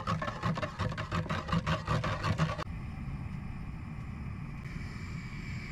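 A spoon stirring Turkish coffee in a copper cezve in quick, even strokes, stopping suddenly about two and a half seconds in. It is followed by a steady hiss as the pot heats on the gas burner.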